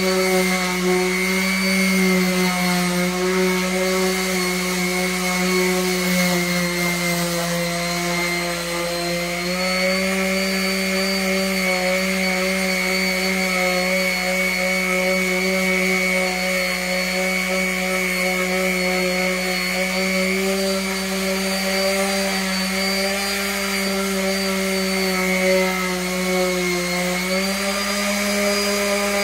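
Electric orbital sander running loud and steady on wood, its pitch stepping up slightly about nine seconds in and again near the end.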